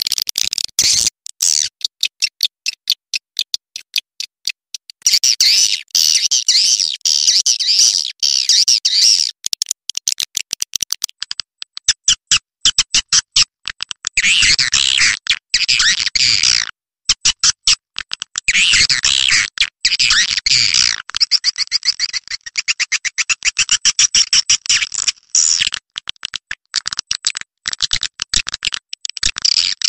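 Swiftlet calls from a lure recording used to draw swiftlets in to roost: rapid trains of clicks and high chittering twitters in repeated bursts, with short breaks between them.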